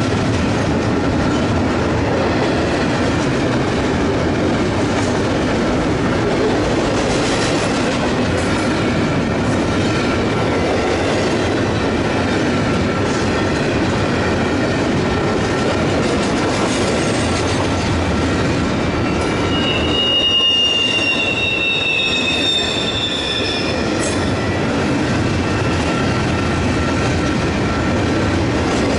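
Double-stack intermodal container train rolling past, a steady rumble and clatter of steel wheels on rail. About twenty seconds in, the wheels squeal in a few high, slightly falling tones for several seconds.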